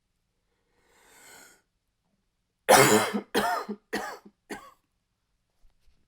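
A man's dry cough with a slight bark. A short breath in, then a fit of four quick coughs, the first the loudest and each after it weaker.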